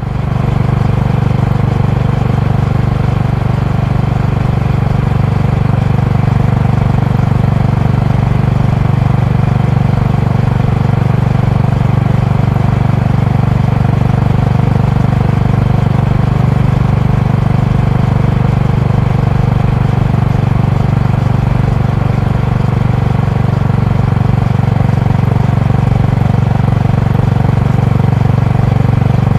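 Honda GB350's air-cooled 348 cc single-cylinder engine and exhaust running at a steady cruise, heard from the rider's seat: an even, low pulsing exhaust note.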